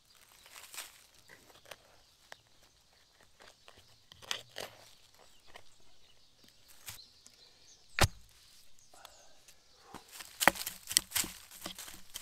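Footsteps and rustling in forest litter with small twigs cracking, then one sharp woody crack about eight seconds in. A quick run of sharp knocks on wood follows near the end.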